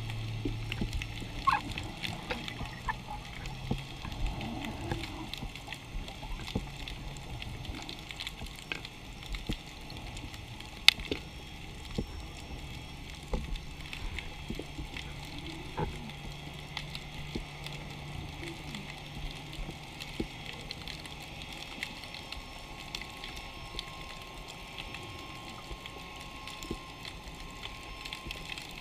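Underwater ambience picked up by a camera in its housing: a steady hiss full of scattered small clicks and crackles, with a few sharper pops. A low steady hum sounds through the first two thirds and then fades out.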